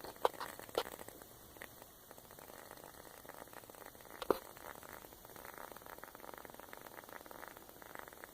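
Cheap wooden-wick candle burning with a faint fizzing, sputtering crackle and a few sharp pops, the loudest about four seconds in, with quick small crackles through the second half; the noise its owner calls farting.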